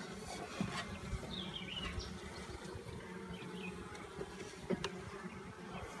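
Honeybees buzzing around an open, smoked top bar hive: a steady low hum, with a few faint knocks.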